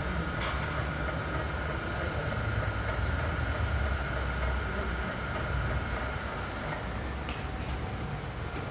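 Paper tube labelling machine running with a steady low hum and rumble from its motor and rollers. A brief sharp noise about half a second in, and a few faint clicks later on.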